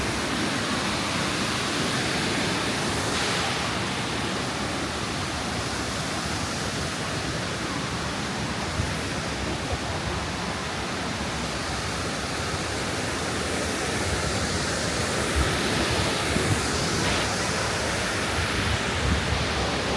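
Steady rush of a waterfall on a creek, an even hiss of falling water at a constant level.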